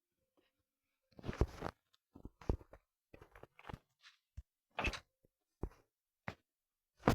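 A string of about ten short, irregular knocks and rustles, starting about a second in.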